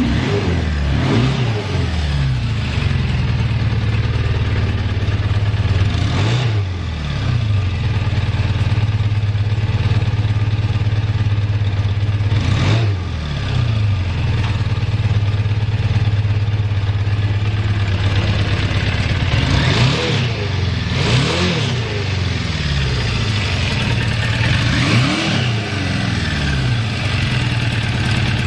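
Suzuki GS650 air-cooled inline-four motorcycle engine idling steadily, with about six short throttle blips that rise and fall in pitch. No abnormal engine noises.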